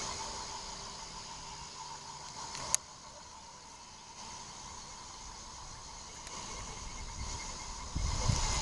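Night chorus of crickets and other insects: steady high chirring, with one band pulsing evenly. A single sharp click about a third of the way in, and a low rumble near the end.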